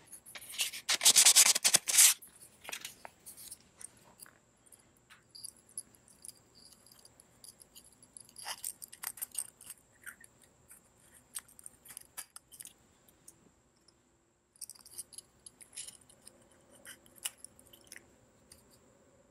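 Small plastic and metal parts and wire handled by hand on a workbench: a loud rustling scrape in the first two seconds, then scattered light clicks, rubs and scrapes.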